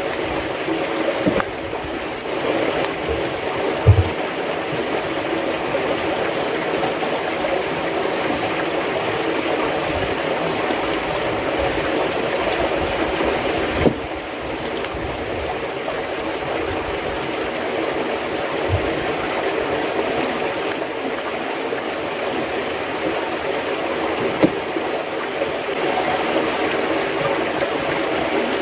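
Steady rush of flowing water, with a few faint knocks about 4, 14 and 24 seconds in.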